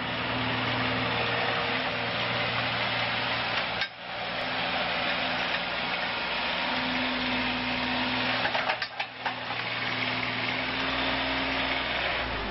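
Boxer 532DX mini track loader's engine running at high throttle as the machine drives: a steady, loud mechanical drone, briefly dropping about four seconds in and again around nine seconds.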